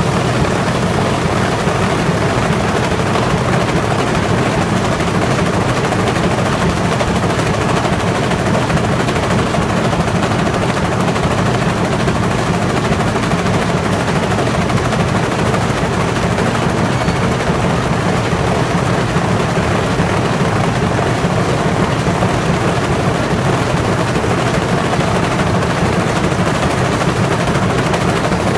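Vibrator and stacker of a corrugated-carton die-cutting line running: a loud, steady, rapid rattle as the vibrating section shakes waste scraps off die-cut cardboard sheets on their way to the stacker.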